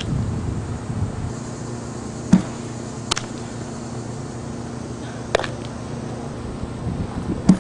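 Sharp single knocks of softball infield practice, a ball cracking off a bat and smacking into leather gloves, about five of them a second or more apart over steady background noise.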